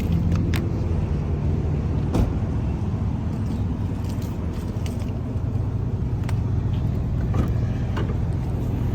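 A vehicle engine running steadily, with a few sharp clicks and knocks.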